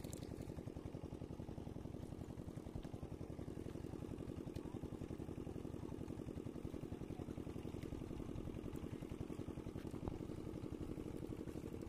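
A small engine running steadily at idle with a fast, even putter.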